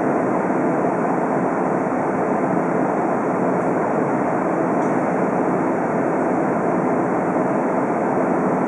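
Diesel railcar standing at a station with its engine idling, a steady rumble heard from inside the passenger cabin.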